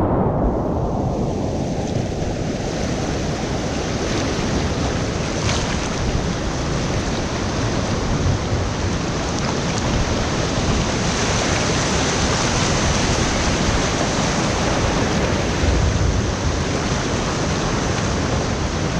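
Rushing whitewater of a river rapid, a steady even rush of water, with wind buffeting the camera microphone. It sounds muffled for the first couple of seconds, then clears.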